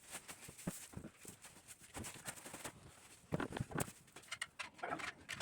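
Short animal calls from farm animals, the clearest a little over halfway through, amid scattered knocks and rustling from work in the pen.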